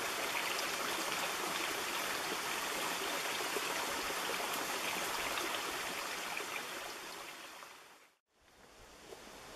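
Creek water running over rocks, a steady rushing that fades out about eight seconds in; a quieter outdoor hiss fades back in near the end.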